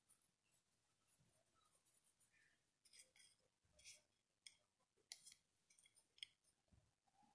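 Near silence: room tone with a few faint, short clicks and ticks.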